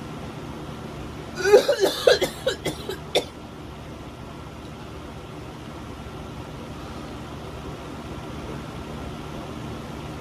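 A person coughing in a quick burst of several short coughs about a second and a half in, in the burning aftermath of eating a super-hot chip, over a steady low hum.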